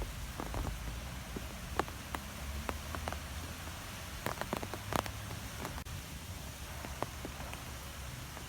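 Wind blowing in trees: a steady low rumble with scattered light ticks and taps throughout.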